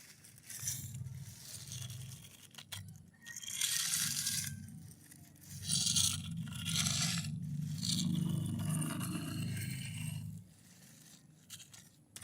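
Scrubbing and scraping while a mud-covered toy loader is cleaned, in several scratchy bursts over a low rumble. It drops off after about ten seconds.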